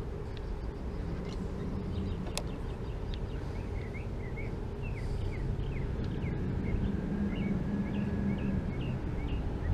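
A bird chirping repeatedly in short, high notes, one or two a second, over a steady low rumble, with a single sharp click about two and a half seconds in.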